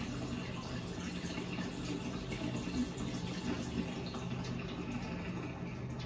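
Water running steadily from a tap into a bathtub that is partly filled, a continuous splashing rush.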